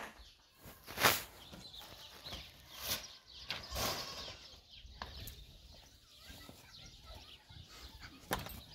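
A few sharp knocks, the loudest about a second in and others near three, four and eight seconds, over a faint outdoor background.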